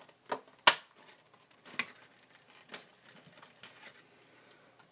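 Sharp clicks and taps of a plastic blister pack and its foil booster packs being handled: about four distinct knocks in the first three seconds, the loudest under a second in, then a few faint ticks.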